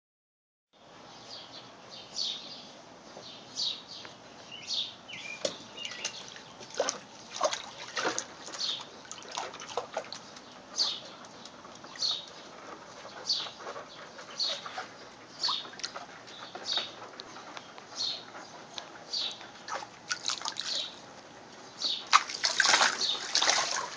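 Water splashing in a plastic kiddie pool as a raccoon wades and paws at it: short splashes about once a second, then a run of heavier splashing near the end.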